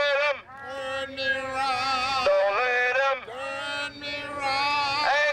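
Song with a solo singing voice holding long notes and gliding between pitches.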